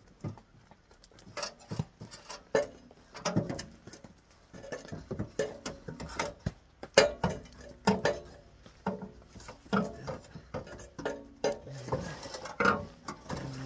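Steel muffler of a 2022 Subaru Outback Wilderness being shifted back into place: a string of irregular metallic knocks and clanks as it is worked onto its rubber hanger bushings and lined up with the exhaust pipe.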